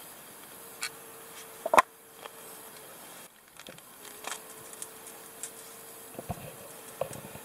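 Small hard clicks and clatter of a folding gas stove and its screw-on canister being handled and set down, one sharp click a little under two seconds in the loudest, then a few lighter taps. A faint steady hum runs underneath.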